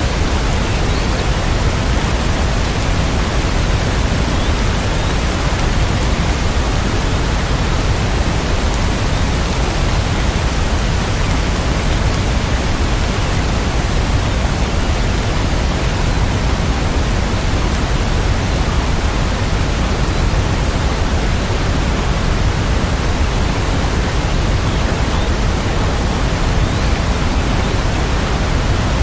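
Steady rain falling, an even, unbroken hiss with a deep undertone and no separate drops or thunder standing out.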